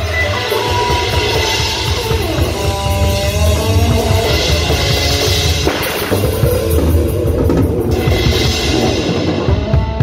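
Live rock music with a drum kit played hard: a busy kick drum and a wash of cymbals, over held pitched instrument notes.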